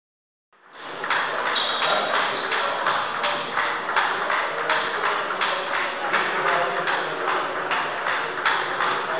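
Table tennis balls clicking on table and bat, a sharp ping about twice a second, over the general murmur of a sports hall.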